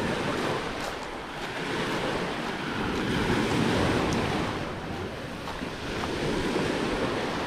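Small sea waves washing up on a pebble beach, swelling and ebbing and loudest a little past the middle, with wind buffeting the microphone.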